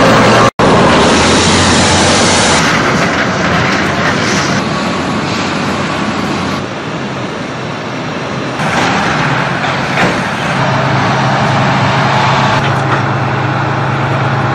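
Engines of heavy tracked military vehicles running and driving, shifting in character at several abrupt changes, with an instant's dropout about half a second in.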